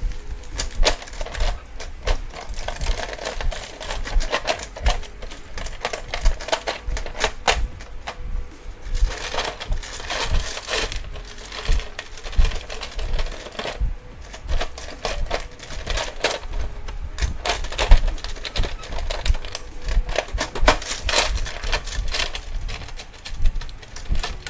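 Small plastic Wiki Bricks building blocks clicking and clattering as loose pieces are picked through and handled, in quick irregular clicks. A plastic parts bag rustles in between.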